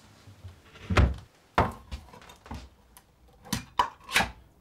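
A run of sharp knocks and clunks, about six in all, the loudest about a second in: a kitchen cupboard door being opened and things inside it being handled.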